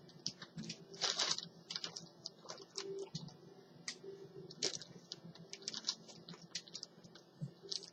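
Light clicks and taps of a laptop hard drive and small parts being handled at a laptop's drive bay: a scattered run of short clicks, with louder knocks about a second in and again near five seconds.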